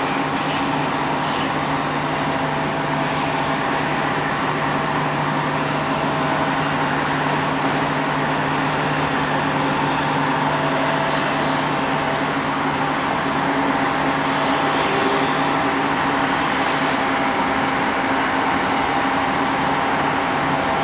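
Turbofan engines of taxiing jet airliners, among them a Boeing 767-300, running at low taxi thrust: a steady hum and whine with several held tones.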